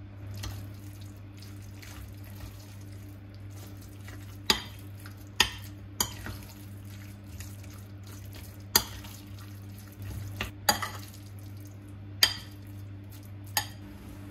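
Metal spoon stirring minced chicken and fried vegetables in a glass bowl, with several sharp clinks of the spoon against the glass, a second or more apart, over a steady low hum.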